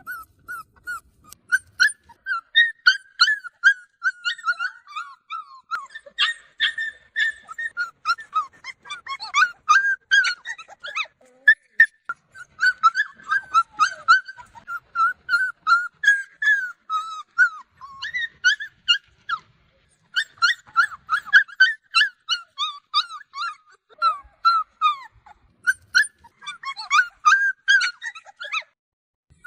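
Several dogs whining and crying for attention in short, high-pitched, wavering whimpers that follow one another almost without pause, with a couple of brief lulls.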